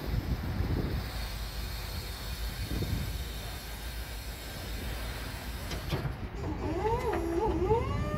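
Electric reach truck running, with wind rumble on the microphone and a faint high whine for the first six seconds, then an electric motor whine that wavers up and down in pitch from about six and a half seconds as the truck works and moves off, settling to a steady pitch near the end.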